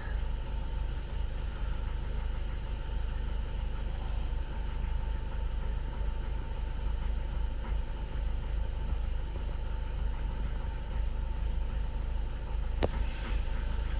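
Skoda Octavia 1.6 TDI four-cylinder diesel engine idling roughly with a steady low rumble. It is shaking hard, and the owner takes this for one cylinder not firing, with the injector correction values showing problems. A single sharp click sounds near the end.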